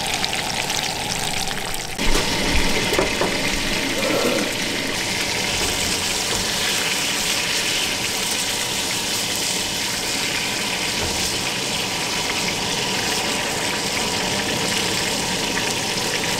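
Striped bass fillets frying in oil in a skillet, a steady sizzle. About two seconds in there are a few short knocks.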